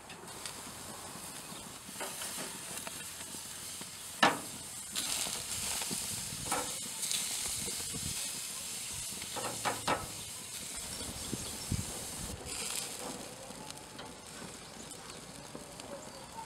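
Meat sizzling on a grill, a steady hiss. A few sharp metal clicks come as the hand-forged steel steak turner knocks on the grate: the loudest about four seconds in, and a quick pair near ten seconds.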